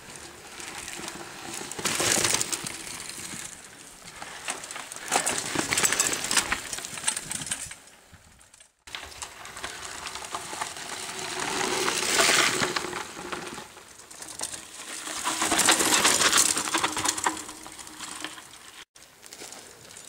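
Mountain bikes riding past on a dirt forest trail: tyres crunching over the ground with clicking and rattling from the bikes, swelling as each rider comes close and fading as they pass, four times over.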